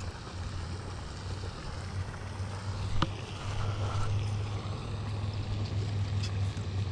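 Low, steady rumble of wind buffeting the camera microphone, under a soft hiss, with a single sharp click about three seconds in.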